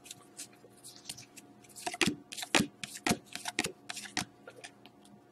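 A stack of hockey trading cards being thumbed through by hand: cards flicked and slid against one another, giving sharp papery clicks. They are faint at first, then louder and about two a second from about two seconds in.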